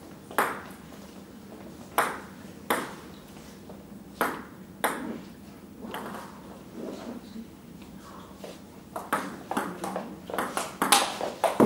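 Table tennis ball clicking: a few separate bounces in the first seconds, then from about nine seconds in a fast rally, the ball striking rubber paddles and the table top in quick alternation.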